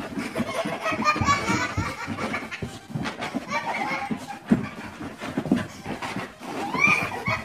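People laughing and talking, children's voices among them, with a few sharp knocks.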